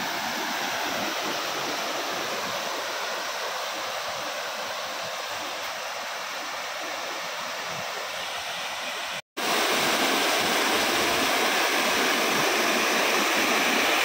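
Small waterfall spilling down a rock face, a steady rush of falling water. It breaks off for an instant about nine seconds in and comes back louder.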